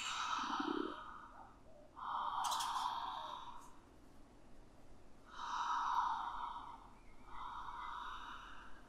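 A woman breathing deeply and audibly through the open mouth, four long breaths in a continuous in-and-out rhythm of connected breathwork.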